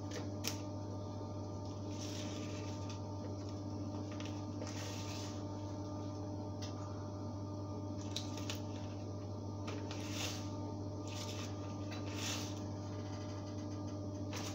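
Steady low electrical hum, with a few faint, short soft rustles scattered through it.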